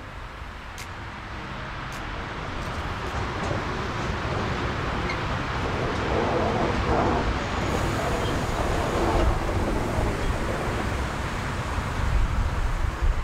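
A train approaching on the track: a steady low running noise that grows gradually louder.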